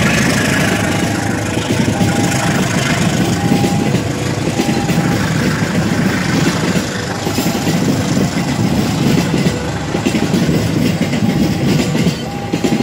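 Passenger train coaches rolling past close by: a loud, steady rumble and clatter of steel wheels on the rails.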